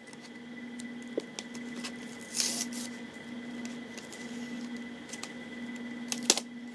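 Plastic toy packaging being handled and pulled at: scattered clicks and a short crinkling rustle about two and a half seconds in, over a steady low hum.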